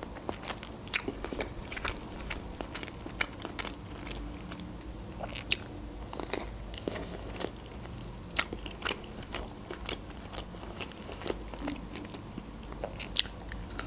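Eating a glazed chicken wing: biting into it and chewing, with irregular sharp clicks and crunches.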